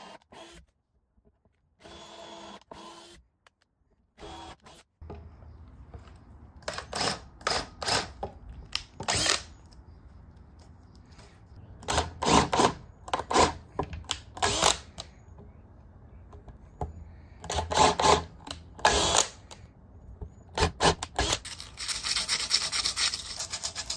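Power drill boring pilot holes into a 2x8 wooden board, running in repeated short bursts of about a second each, with a denser run of drilling near the end.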